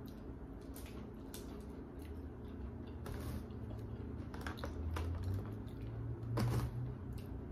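Close-up eating and handling noises: chewing with scattered small crunches and clicks, then a woven bamboo sticky-rice basket being handled, with a louder rustling scrape about six and a half seconds in.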